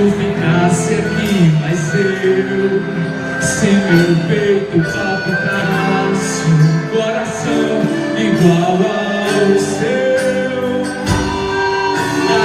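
Quadrilha junina show music with singing: a moving melody over repeated high percussion hits, continuing without pause.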